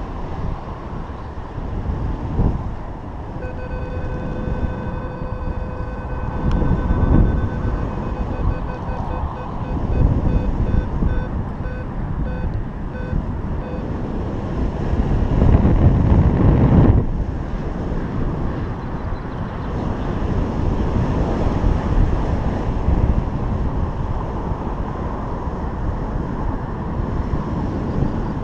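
Airflow rushing over the microphone of a paraglider in flight, swelling in gusts about 7, 10 and 16 seconds in. From a few seconds in until about halfway, a paragliding variometer's buzzy electronic tone sounds steadily, then breaks into short beeps before stopping.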